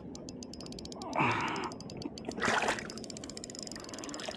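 Spinning fishing reel clicking rapidly and evenly as a hooked sierra (Atlantic bonito) is brought up to the surface. There is a sharp breath about a second in, and water splashes as the fish thrashes at the surface.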